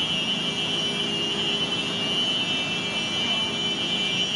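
Rushing tsunami floodwater with a steady, high-pitched alarm tone sounding over it.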